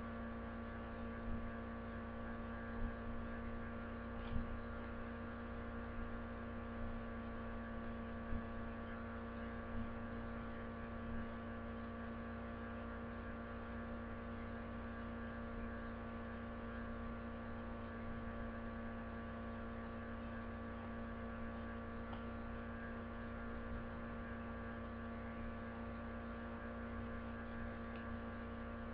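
Steady electrical hum made of several fixed tones, the strongest one low, over a low rumble. A handful of faint knocks about a second and a half apart come during the first eleven seconds.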